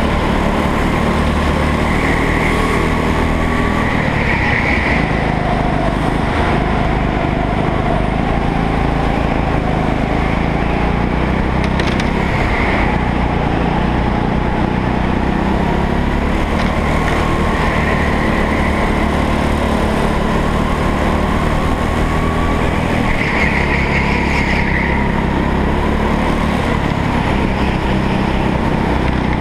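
Rental go-kart's small engine running hard through a race lap, heard from a camera mounted on the kart: a loud, steady drone that never lets up.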